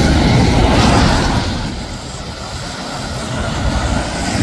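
Jet airliner engines heard across the airfield as a steady, loud rushing rumble, easing off about a second and a half in, then building again near the end as another jet comes in.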